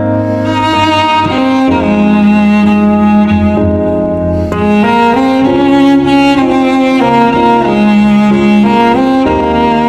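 Background music: bowed strings, cello and violin, playing a slow melody with sustained notes.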